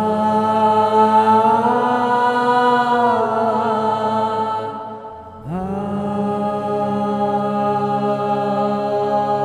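Background music of slow church chant: voices holding long, slowly moving notes over a steady low drone. It fades briefly about halfway through, then a new phrase begins.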